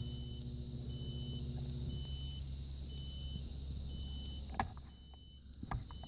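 Steady electrical hum from a Goodman GPH packaged heat pump as its fan is switched on from a test thermostat, with the fan not starting. The hum stops with a click about four and a half seconds in, and another click follows about a second later.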